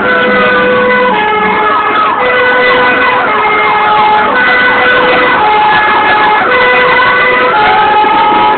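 Fire engine sirens heard from inside the cab on an emergency run: a two-tone note switching between high and low every second or two, together with a wail that slowly rises and falls, and a quick run of repeated falling sweeps between about one and three and a half seconds in.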